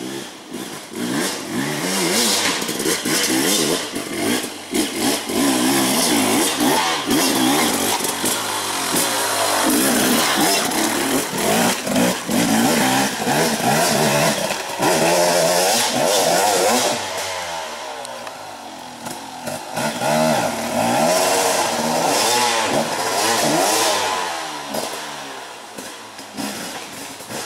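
Off-road dirt bike engine revving hard and unevenly on a steep rocky climb, the pitch rising and falling with the throttle. It eases off about two-thirds of the way through, picks up again, then fades near the end.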